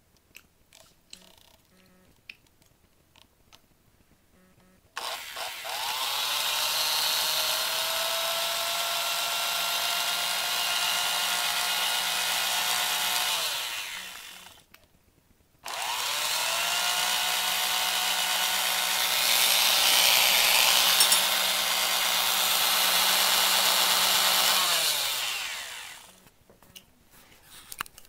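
A 1960s General Electric Lifetime hand mixer's motor running twice. Each run starts with a rising whine as it spins up and ends with a falling whine as it winds down, and the second run grows louder for a while in the middle. A few small clicks of handling come before the first run.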